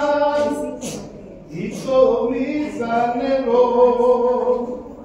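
Unaccompanied singing of a slow, chant-like hymn in long held notes, with a short break about a second and a half in before the next phrase.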